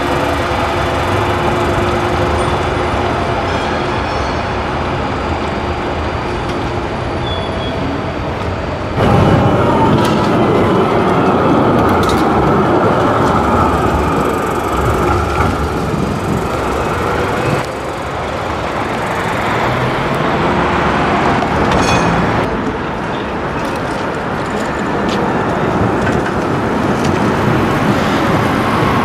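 Munich low-floor electric trams, including a Type R2.2, running past and pulling in on street track, with the whine of their electric drives and wheel noise on the rails, over city road traffic.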